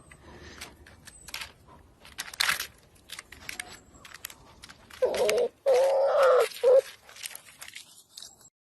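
A bird calling: three low, steady, pitched notes in quick succession about five seconds in, after a few seconds of scattered light clicks and rustling.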